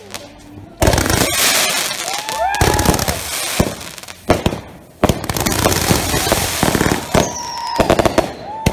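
Consumer aerial firework cake firing in quick succession: repeated bangs and crackling bursts. Two long, held, pitched tones sound in the middle and near the end, and a high falling whistle comes shortly before the end.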